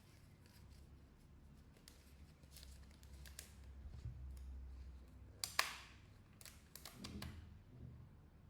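Hands working on a phone repair: a scatter of small clicks and short rasps, with the loudest sharp snip or click about five and a half seconds in and a few more about a second later, over a low steady hum.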